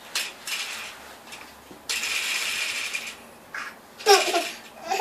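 Bathwater splashing and plastic bath toys knocking as a toddler plays in the tub, with about a second of steady pouring, sloshing water in the middle. A child's voice babbles briefly near the end.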